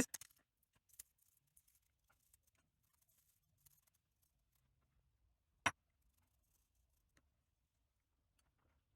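Quiet handling of small padlock parts: faint rustling and a single sharp click of a part being set down or knocked, about five and a half seconds in.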